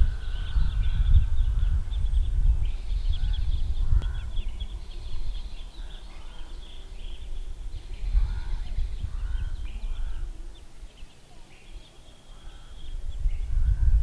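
Wind gusting on the microphone as a rumble that eases off about eleven seconds in and picks up again near the end, with birds chirping and calling throughout.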